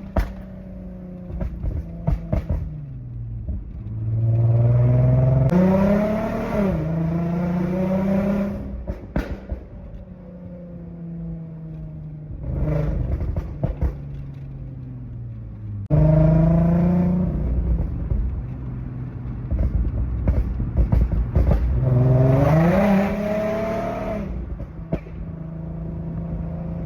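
Car engine revving up in several pulls through the gears, and between them a run of sharp exhaust pops and bangs each time the throttle is lifted. These overrun crackles come from a pop-and-bang engine map.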